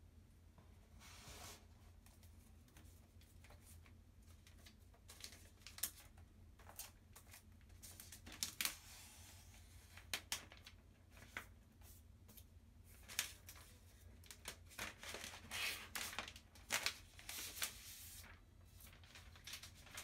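Protective plastic film being peeled off the underside of a new MacBook Pro, crinkling and rustling, with sharp clicks and taps as the aluminium laptop is handled. The rustling is busiest in the second half.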